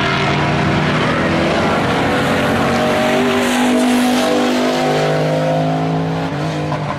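Racing pickup trucks' engines running at speed on an oval track, their engine notes rising and falling. It gets a little louder about halfway through as one truck passes close by.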